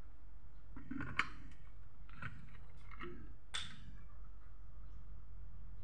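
A few faint clicks and light knocks, the sharpest about three and a half seconds in, over a steady low hum.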